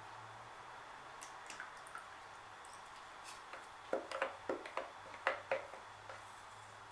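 A stirring stick knocking and scraping against a plastic tub while thick white acrylic paint is poured off into cups. Scattered light clicks, then a quick run of about eight sharper taps from about four seconds in.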